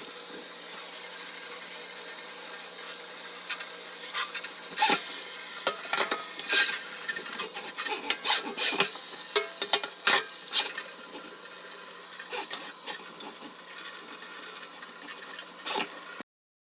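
Plastic keyboard parts clicking and rattling as they are handled and washed, with a steady watery hiss; the clatter is densest in the middle and the sound cuts off suddenly near the end.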